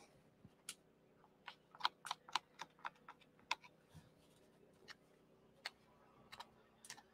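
Faint, irregular clicks and taps of a knife against a cutting board and rib bones as a pork rack is Frenched, about a dozen in quick succession in the first half and scattered after, over a faint steady hum.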